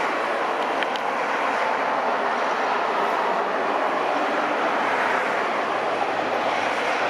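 Jet engines of a Boeing 737-800 airliner making a steady, even rushing noise with no distinct tone, loud and unchanging.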